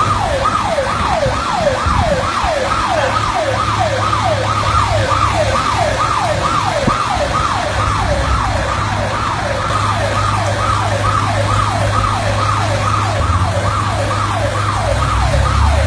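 Electronic siren sounding a falling whoop that repeats about twice a second, over the steady low hum of a running engine.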